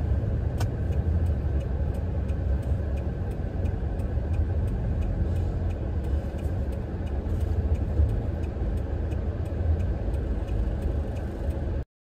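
Car cabin noise while driving: a steady low engine and road rumble, with faint regular ticks about two or three a second. The sound cuts off suddenly near the end.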